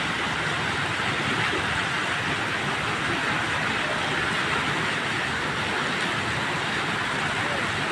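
Flash flood of muddy water and debris rushing over the ground after heavy rain: a steady, even rushing noise that neither rises nor falls.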